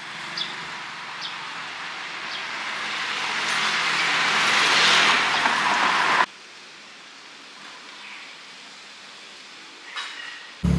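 A car driving up the street, its tyre and engine noise swelling as it nears, then cutting off suddenly about six seconds in, leaving a quieter steady street background.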